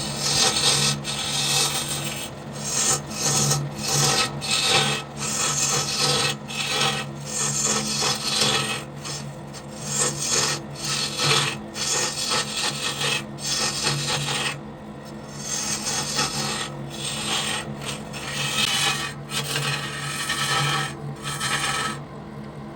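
Wood being turned on a lathe: a cutting tool scraping against spinning wood in strokes that keep stopping and starting, over the steady hum of the lathe's motor.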